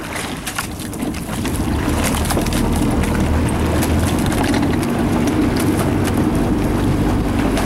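A motorboat running alongside, with wind on the microphone, makes a steady rush that grows louder about a second in and then holds.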